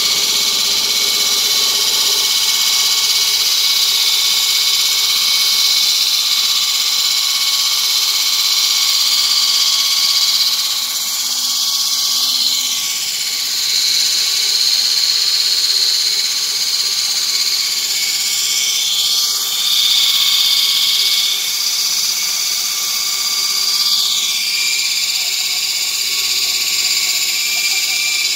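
Electric track-mounted wall saw with an 800 mm diamond blade, cutting reinforced concrete with a lot of steel in it. It keeps up a loud, steady high-pitched whine, and about four times the pitch briefly dips and recovers as the blade loads up.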